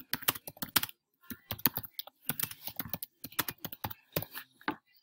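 Computer keyboard being typed on: quick, irregular runs of keystrokes with short pauses between words.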